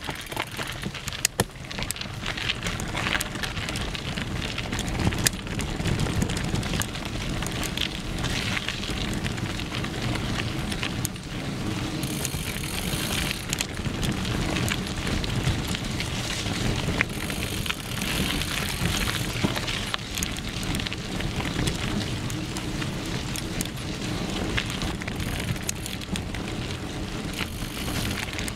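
Mountain bike riding over a dirt singletrack, heard up close from the bike: continuous rumble and crunch of knobby tyres on packed dirt and dry leaves, with frequent clicks and knocks from the bike rattling over the bumps.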